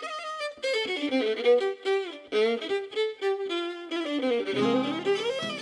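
Background music: a violin playing a gypsy-swing melody with slides between notes, with lower accompaniment joining near the end.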